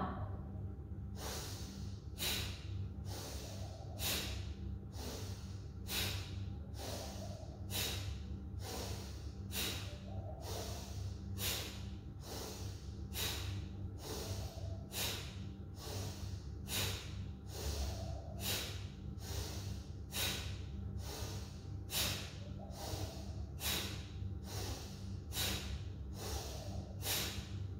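A woman doing Bhastrika (bellows breath): forceful breaths in and out through the nose in a steady, even rhythm, more than one a second.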